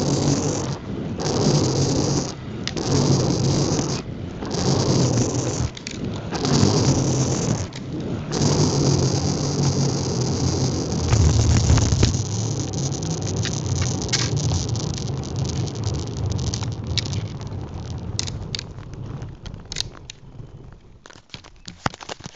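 Inline skate wheels rolling on coarse asphalt, with rushing wind on the microphone. The noise surges and dips every couple of seconds at first, then runs steadier and dies away near the end into a few scattered clicks and taps.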